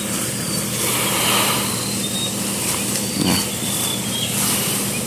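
Power sprayer's engine running steadily, with the hiss of insecticide spraying from a hose nozzle onto calamansi trees.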